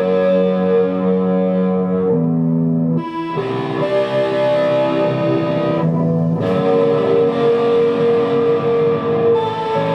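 Music: guitar played through effects with some distortion, long held chords that change a few times.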